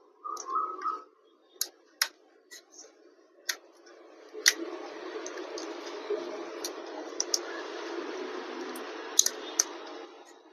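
Sharp clicks and taps of a screwdriver and small screws against a laptop's chassis as the motherboard screws are taken out. A steady rushing noise comes in about four and a half seconds in.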